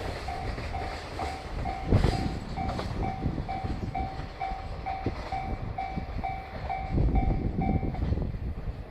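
Freight train's container wagons rolling past, wheels clacking over rail joints with heavy thuds about two seconds in and again about seven seconds in. A level crossing's electronic warning bell rings about twice a second throughout and stops near the end.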